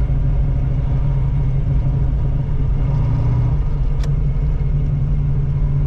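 1985 Oldsmobile Cutlass Supreme's engine, breathing through large aftermarket headers, running steadily while the car is driven. It runs smoothly on its newly installed carburetor without faltering. There is one short click about four seconds in.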